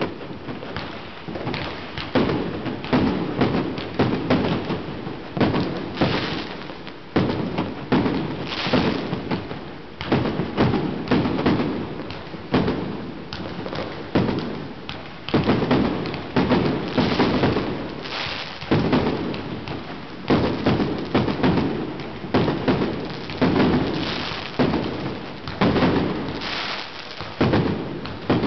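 Aerial fireworks going off in quick succession: heavy bangs about once a second, each rising suddenly and fading away, with smaller cracks and crackling between them.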